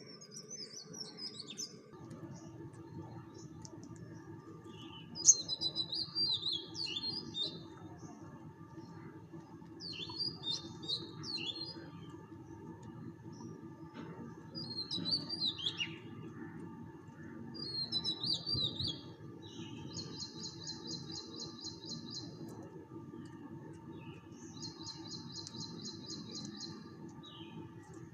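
A small bird singing short, varied high chirped phrases every few seconds, then fast, even trills in the last third, over a steady background hum.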